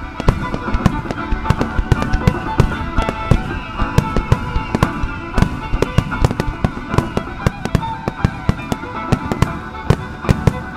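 Starmine fireworks barrage: aerial shells bursting in quick succession, several bangs a second, over music.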